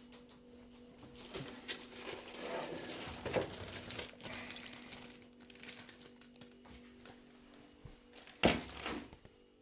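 Packaging being handled: rustling and crinkling, with a knock in the middle and a sharp thump near the end.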